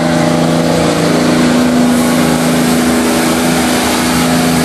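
Diesel truck engine running at a steady speed, holding an unchanging drone.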